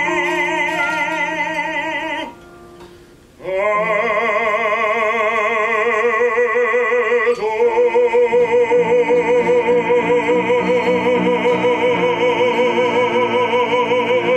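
Operatic baritone voice singing with grand piano accompaniment: a held note, a short breath about two seconds in, then a rising line that steps up about seven seconds in to a long final note sung with wide vibrato over sustained piano chords.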